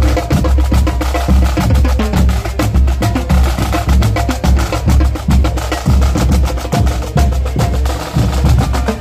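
A marching band's snare drums playing a fast, continuous drum cadence, many sticks striking the drumheads together.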